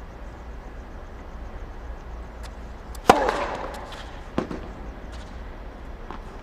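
Tennis ball struck hard with a racket about three seconds in, one sharp crack with a short ringing tail, followed just over a second later by a second racket hit.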